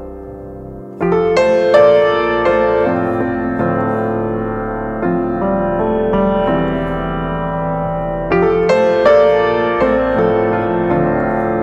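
Background piano music: a slow melody of ringing notes that grows louder about a second in and swells again near the end.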